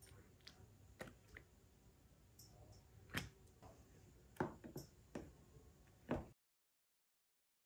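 Faint scattered taps and clicks of painting supplies being handled at the table, about half a dozen small knocks, the clearest around three seconds in and near four and a half seconds. The sound cuts to dead silence about a second and a half before the end.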